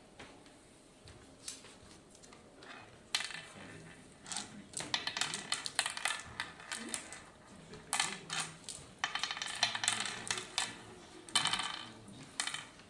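Hard oware seeds clicking and rattling against each other and against the hollowed pits of a wooden oware board as a player picks them up and sows them one by one around the board. Quick runs of clicks start about three seconds in and carry on until near the end.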